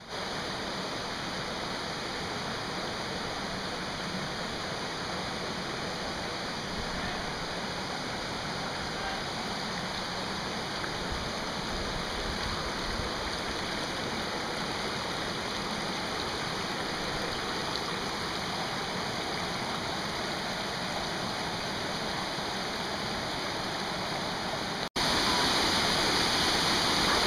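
Mountain stream rushing over rocks: a steady water noise. After a brief break near the end it comes back louder.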